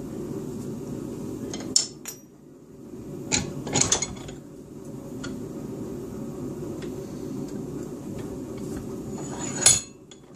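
Hand filing on a rifle trigger plate clamped in a bench vise: a steady low rasp that pauses briefly twice, broken by sharp metallic clinks of steel tools knocking the vise and being set down, the loudest near the end.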